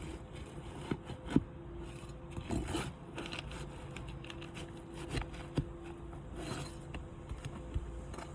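Scattered scrapes and sharp knocks of a hand tool prying at asphalt shingles and working their roofing nails loose, with a louder knock about a second in.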